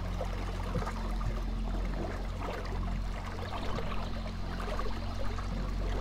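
River water lapping and trickling against the side of a boat, over a steady low hum.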